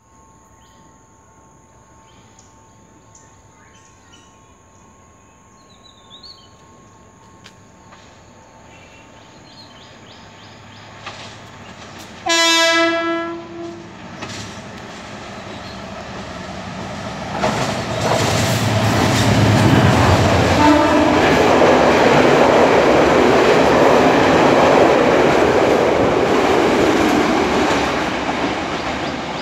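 An approaching diesel express train gives one loud horn blast lasting about a second, a third of the way in. Then the rumble of its engine and wheels on the rails grows louder and holds, easing slightly near the end.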